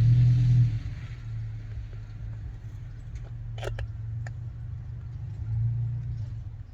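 A steady low rumble, swelling at the start and again near the end, with a few small sharp clicks in the middle as small parts are handled at the workbench.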